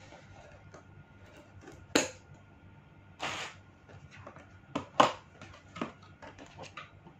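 Handling and opening the cardboard and plastic packaging of a GoPro suction cup mount: many small clicks and taps, a sharp snap about two seconds in, a short scraping noise a little after three seconds, and the loudest snap about five seconds in.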